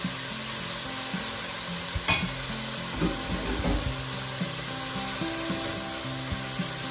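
Chopped onion and garlic sizzling in hot olive oil in a stainless steel pot, stirred and scraped with a silicone spatula, with one sharp knock about two seconds in.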